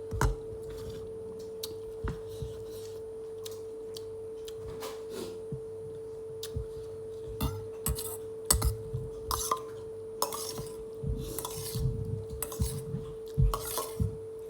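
Cutlery and dishes clinking and scraping while someone eats a meal, in scattered short clicks and brief bursts that get busier in the second half, over a steady hum.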